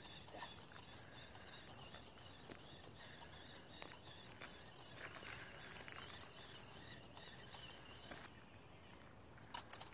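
Crickets chirping: a faint, high, rapidly pulsing trill that stops for about a second near the end, then resumes.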